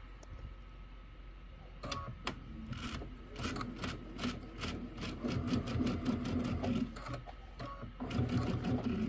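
Computerised sewing machine stitching a seam through two quilt blocks: it starts about two seconds in, runs as a fast steady patter of stitches over a low motor hum, pauses briefly near the end and starts again.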